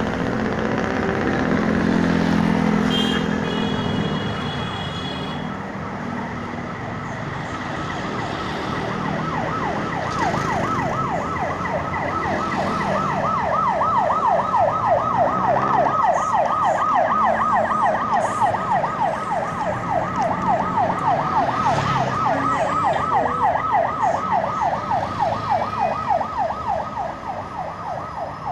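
Traffic noise on a busy city road. About nine seconds in, an emergency-vehicle siren starts in a fast yelp, its pitch rising and falling several times a second, and keeps going.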